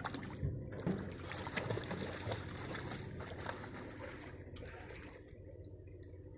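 Boat engine running steadily with water splashing and trickling, and a few small knocks in the first half; the sound eases off after about four seconds.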